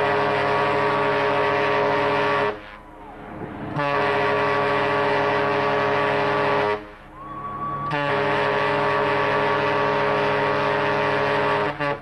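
Ship's horn of the cruise liner SS Seabreeze sounding three long blasts, each a steady low note held about three seconds, with short pauses between them.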